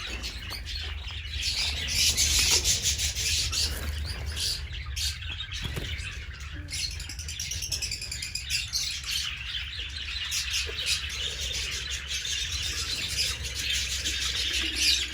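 Many small pet birds in an aviary chirping and twittering together without pause, with a steady low hum beneath.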